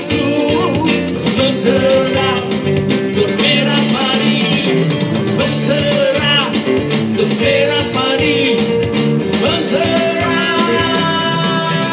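Live street band playing a Malay pop song: a man sings into a microphone over guitar, with a tambourine keeping the beat.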